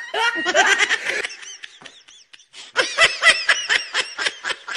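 People laughing: a short burst of voices at the start, then after a brief lull a quick run of laughing pulses, about five a second, from about three seconds in.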